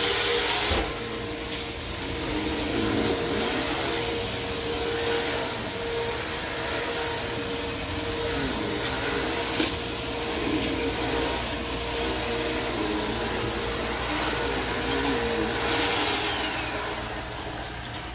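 Steady rain falling on pavement, with a steady mechanical whine from a motor or fan over it that cuts off about sixteen seconds in.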